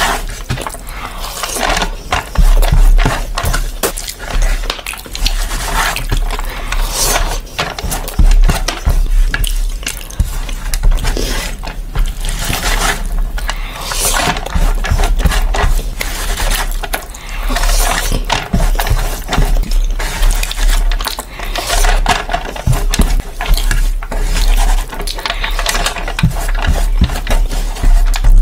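Close-up eating sounds: a hand squishing and scooping spiced rice on a metal tray, with wet chewing and lip smacking between mouthfuls. An irregular run of small crackles and clicks sits over a low steady hum.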